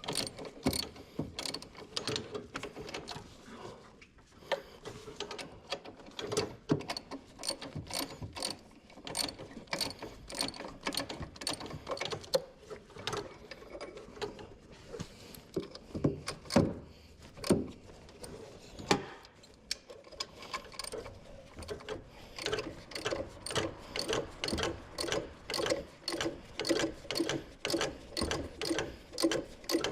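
Socket ratchet wrench clicking as it is worked back and forth on a fastener, in repeated strokes that settle to about two a second near the end.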